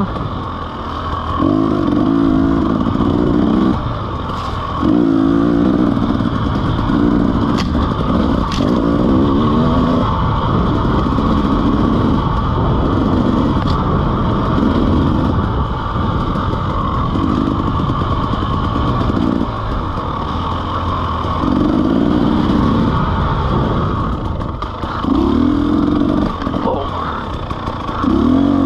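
KTM EXC 300 two-stroke single-cylinder dirt bike engine under riding load, revving up hard and dropping back again and again as the throttle is opened and shut through the trail. A couple of sharp clicks are heard about eight seconds in.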